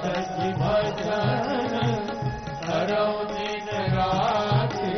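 Indian devotional bhajan music between sung lines: tabla keeping a steady rhythm under a harmonium and a melody that slides up and down.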